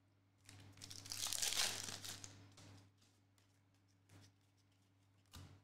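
Foil wrapper of an NBA Hoops trading card pack being torn open and crinkled, a rustling burst lasting about two seconds. A couple of faint clicks of cards being handled come near the end.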